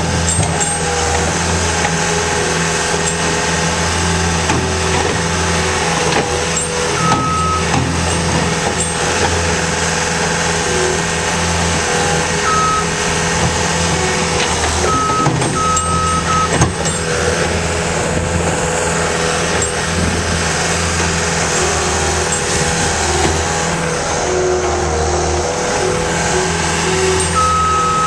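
Cat skid steer's diesel engine running steadily at working speed, with its backup alarm giving short beeps now and then as it reverses, and an occasional sharp knock.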